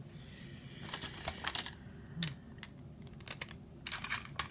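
Hard plastic toys clicking and clattering as a hand rummages through a pile of toy cars and figures: a cluster of light clicks about a second in, a few single clicks, then another cluster near the end.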